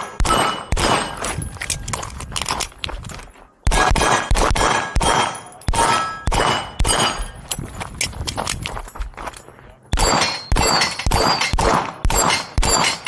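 Rapid pistol shots fired at steel targets, each hit answered by the ringing clang of a steel plate, in quick strings with two short pauses, about three and a half and ten seconds in.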